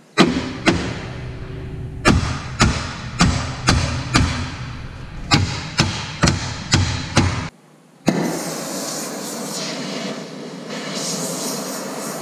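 Hammer blows on the steel of a truck frame, about a dozen sharp strikes in quick groups, knocking at rusted bolts and brackets. From about eight seconds in, an oxy-fuel cutting torch hisses steadily.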